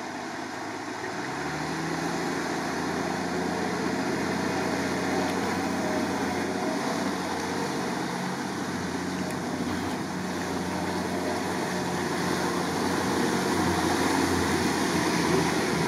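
UAZ off-roader's engine running steadily under load as it wades through a deep river ford, revs rising a little over a second in, with the rush of water pushed around the body.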